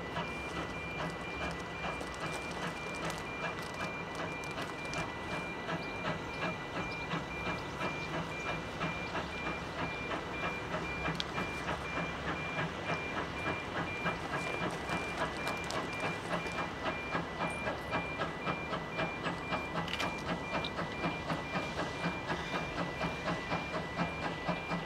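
GWR 57xx 0-6-0 pannier tank steam locomotive working a train towards the listener, its exhaust chuffing in a steady beat of about two and a half a second that grows louder, with steam hiss. A continuous high beeping tone runs underneath.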